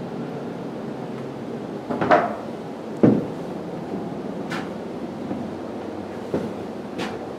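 A few sharp knocks and clicks over a steady background noise, the two loudest close together about two and three seconds in, then fainter clicks toward the end.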